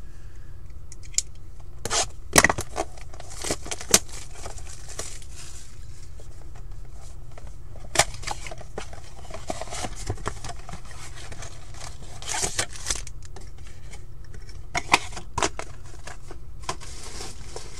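Panini Contenders football card blaster box being opened by hand: its wrapping and cardboard tearing and crinkling in scattered short bursts, with sharp clicks and taps. The sharpest clicks come about two and a half, four, eight and fifteen seconds in.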